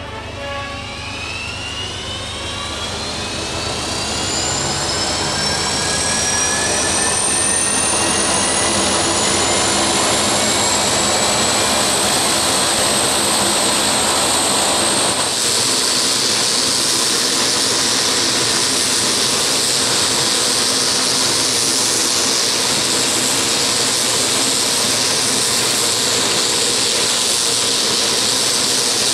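Garrett TPE331-6 turboprop engine starting on battery power: the turbine whine climbs steadily in pitch and grows louder for about ten seconds. Around the middle it gives way to a steady, loud, hissing rush as the engine settles into running.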